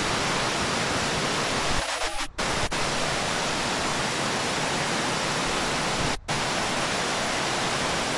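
Floodwater rushing down a flight of stone steps in a steady, loud roar of churning water. It cuts out briefly twice, about two and six seconds in.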